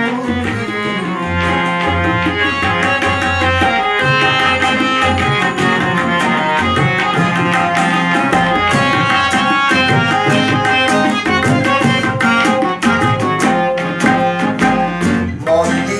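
Instrumental break with no singing: a harmonium plays the melody over held notes, with a steady run of tabla strokes and an acoustic guitar strummed alongside.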